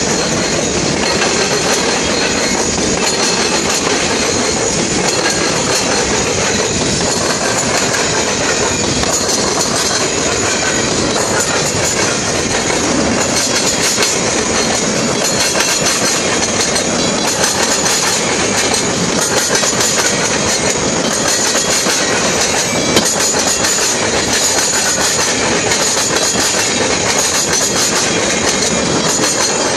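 Norfolk Southern manifest freight train passing close by, its covered hoppers and tank cars rolling past in a steady loud rumble with a constant rapid clacking of wheels over the rail joints.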